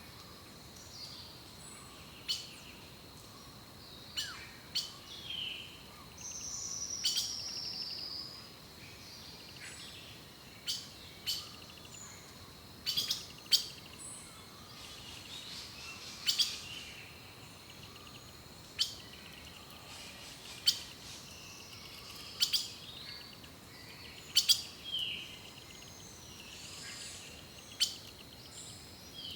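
Wild songbirds calling: short, sharp high chip notes every second or two, with a longer falling trill about seven seconds in. A faint steady high whine runs underneath.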